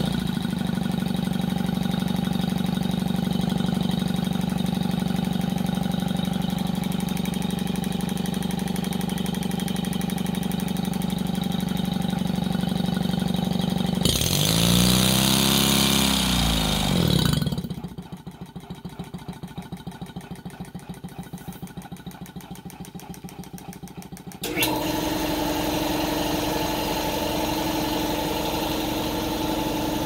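A two-cylinder engine converted from a York car air-conditioning compressor, running on compressed air: first fast and steady with an even hum, then its speed dips and rises about 14 seconds in while the air valve is worked. For several seconds after that it runs slowly and more quietly with an even beat, then picks up abruptly to a steady faster run near the end.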